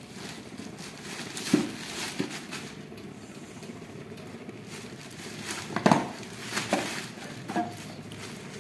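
Thin plastic shopping bag rustling and crinkling as a plastic lunch box and food containers are packed into it, with a few short knocks of the containers, the loudest about six seconds in.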